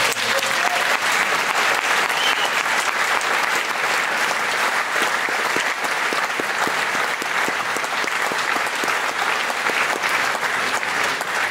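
Audience applauding: a long, even round of clapping from many people.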